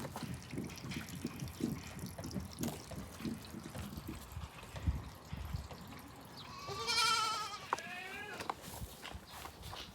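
A goat bleats once, about seven seconds in: a long, wavering call that breaks in two. Before it come irregular low knocks and scuffling.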